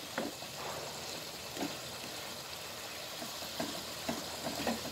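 A vegetable-and-meatball stir-fry in oyster sauce sizzling steadily in the pan, with a few light knocks scattered through.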